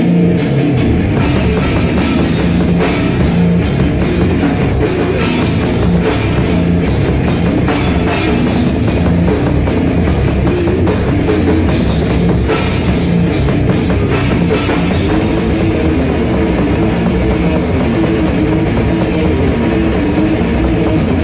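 A rock band playing loud and without a break, electric guitars over a drum kit, heard live in a small rehearsal room.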